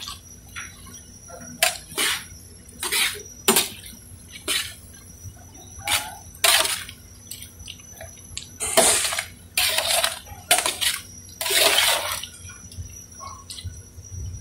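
A ladle stirring boiled macaroni in hot water in a large aluminium pot: irregular sloshing and scraping swishes, about a dozen of them, loudest and closest together in the middle.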